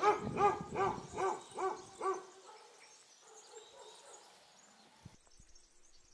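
An animal calling six times in quick succession, about two and a half calls a second, each call short and rising then falling in pitch, followed by a faint outdoor background.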